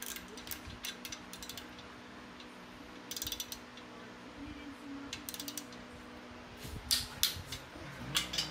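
Socket ratchet clicking, in short quick runs and single clicks, as the crankshaft of a 4.3 Vortec V6 is turned by hand with a long-handled wrench on its snout bolt, checking that the newly fitted crank turns freely in its main bearings.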